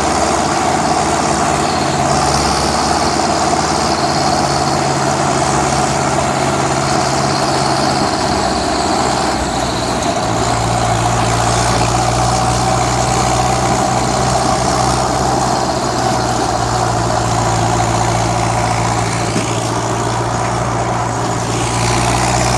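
Steyr 768 tractor's diesel engine running steadily at a low, even speed, its low note shifting slightly about ten seconds in.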